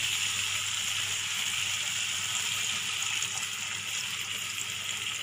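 Potato and prawn in a thick poppy-seed and yogurt masala sizzling steadily in a hot frying pan. Water is poured into the pan near the end.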